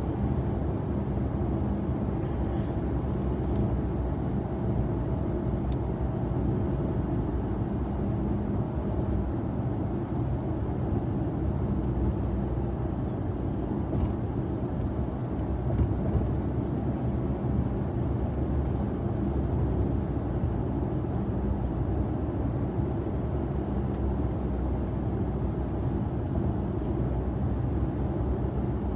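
Steady engine and road noise heard from inside a moving vehicle's cabin, an even low rumble with no sudden changes.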